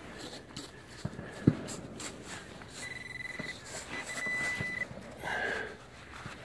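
Hand digger scraping and poking into a plug of soft, wet clay soil, with scattered small knocks and one sharp knock about a second and a half in. Around the middle a metal detector's steady high tone sounds twice, each under a second.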